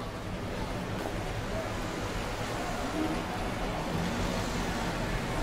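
City street ambience: a steady wash of traffic noise from the road beside the pavement, swelling slightly over the first second.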